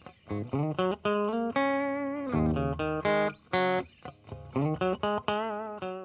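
Intro music: a guitar melody of quick plucked notes, with a few longer held notes that waver in pitch.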